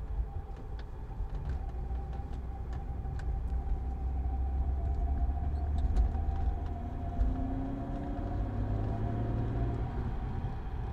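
BMW E36 325i on the move: a steady low road and engine rumble with a thin steady whistle over it and a few faint metallic ticks in the first few seconds. This is the metallic scraping, whistling noise the owner hears from the passenger side. Checking the brakes there turned up no rocks or debris.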